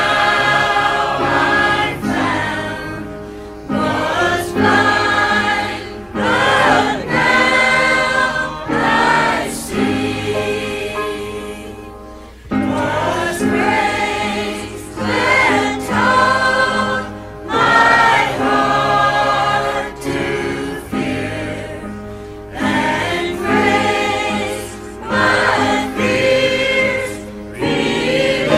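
A choir singing in phrases a second or two long, with short breaks between them.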